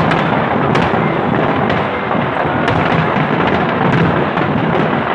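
A dense, continuous barrage of aerial fireworks shells bursting, a steady rumble with sharp cracks standing out every half second or so.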